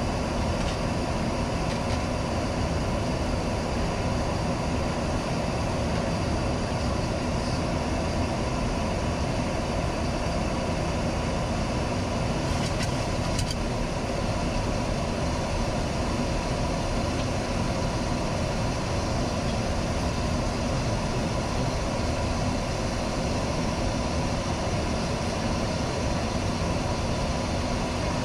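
Steady flight-deck noise of a Boeing 737-800 in flight: a constant rush of air with engine hum beneath it. A couple of faint ticks come about halfway through.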